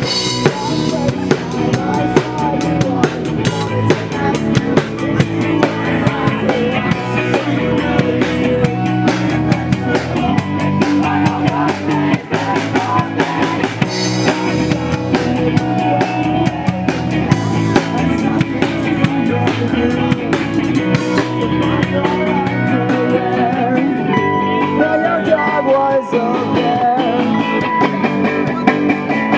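A live rock band playing: a drum kit driving a steady beat under guitar, loud throughout.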